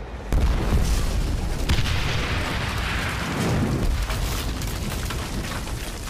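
Film sound effect of a large explosion: a sudden loud blast about a third of a second in, then a long rumble that swells again a second or so later and slowly fades.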